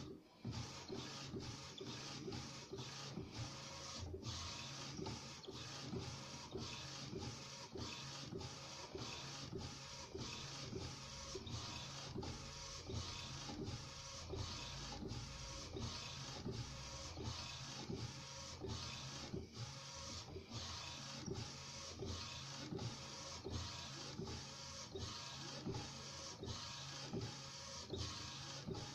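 Epson SureColor SC-P600 inkjet converted into a direct-to-garment printer, its print-head carriage shuttling back and forth while printing onto fabric. The carriage motor and head run in an even rhythm, a little under two strokes a second.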